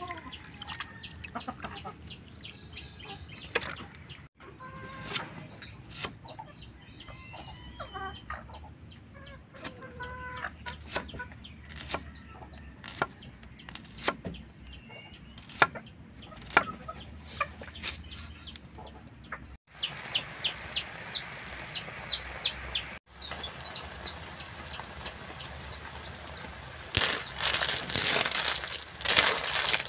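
Free-range chickens clucking in the yard while a knife slices onion on a wooden chopping board, with sharp knocks about once a second. Near the end a louder rush of noise as steaming river snails are stirred in a metal pan.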